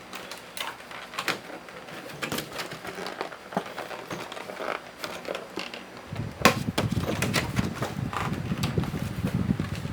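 Toy packaging being handled and opened: a run of small clicks, crackles and rustles of cardboard and plastic, busier in the second half.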